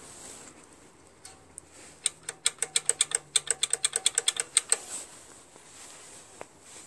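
A rapid run of about twenty sharp metallic clicks, roughly eight a second, lasting about three seconds, as the throttle and governor linkage on the Tecumseh snowblower engine's carburetor is worked by hand.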